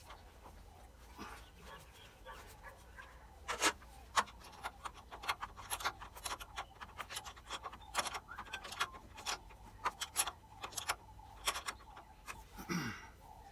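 Spanner working the nut on a steel battery hold-down clamp: a run of irregular metal clicks and clinks as the new battery is clamped down.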